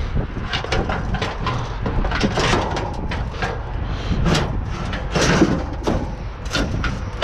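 Repeated knocks, clunks and scrapes of junk shifting in a dumpster as someone rummages and steps through it, over a steady low rumble of wind on the microphone.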